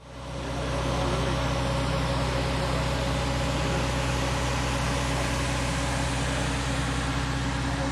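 Steady drone of a vehicle ferry's engine running, a low hum with a few steady tones over a noisy wash.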